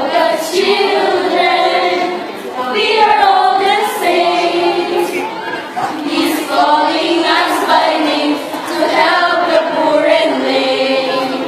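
A group of teenage students, mostly girls' voices, singing together without accompaniment in held phrases of two to three seconds with short breaths between them.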